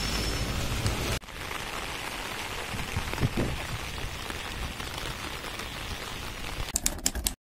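Steady rain falling, an even hiss that drops quieter at a sudden cut about a second in. A few sharp clicks near the end, then it cuts off.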